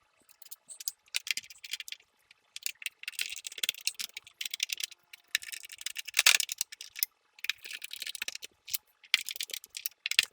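Small Allen screws being driven in with a hex key to hold the GoPro Karma drone's landing gear on: irregular runs of quick, light clicks and scrapes of metal tool on screw heads and plastic.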